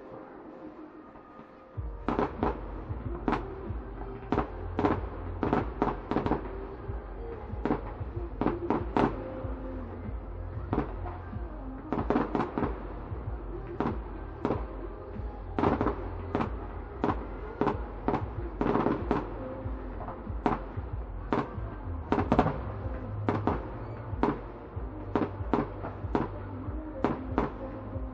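Fireworks display: aerial shells bursting in a rapid, irregular string of sharp bangs, several a second at times, starting about two seconds in and continuing throughout.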